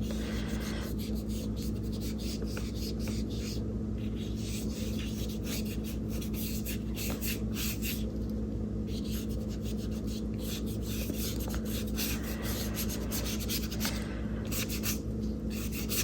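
Paintbrush rubbing and scratching across gesso-primed mixed media paper as acrylic paint is worked in with short, irregular strokes, over a steady low hum.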